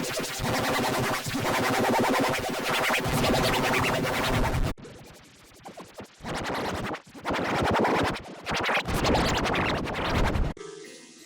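Loud, heavily distorted electronic effect-processed cartoon audio with a stuttering, scratch-like texture. It breaks off about five seconds in and comes back in short choppy stretches until just before the end.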